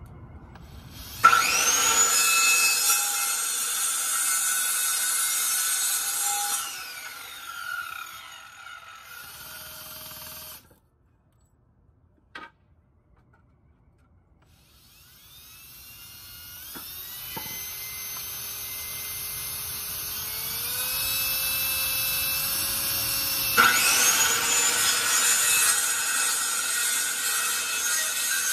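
Electric power saw cutting wood. It starts sharply about a second in with a rising whine, runs, then winds down and stops about ten seconds in. After a single click in the quiet, the sound builds slowly again and the saw starts hard near the end.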